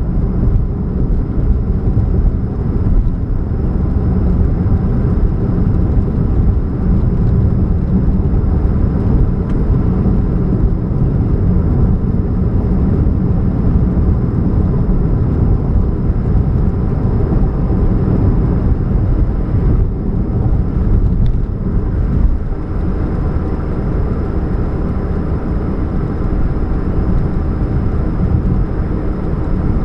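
2013 Chevrolet Spark running, a steady low rumble of engine and road noise with a hum, which the owner puts down to a catalytic converter leak.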